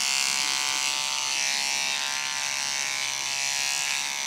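Cordless electric beard trimmer with a length guard fitted, running with a steady buzz as it is passed through beard hair along the cheek and jaw.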